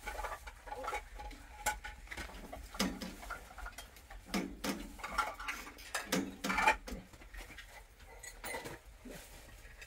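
Dishes and utensils clinking and knocking in an irregular run of short taps and clicks, with a few louder knocks.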